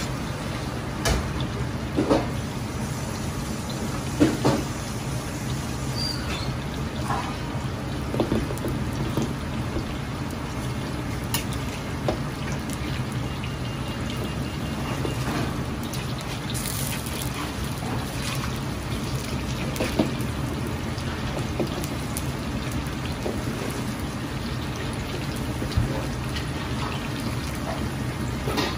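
Starch-coated chicken wing pieces deep-frying in a wok of hot oil, a steady sizzle and crackle of bubbling oil. A metal ladle knocks and clinks against the wok now and then, over a low steady hum.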